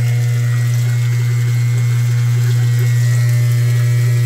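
Submersible vibrating pump (bomba sapo) running under test, giving a loud, steady low hum, with water from its hose splashing into the barrel. It is pumping against about 40 m of water-column pressure.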